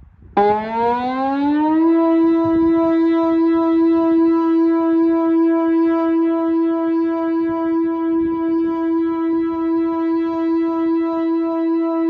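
Whelen WPS-2807 electronic civil-defence siren sounding Denmark's all-clear ('danger over') signal. The tone starts abruptly, rises in pitch for about a second and a half, then holds one steady pitch.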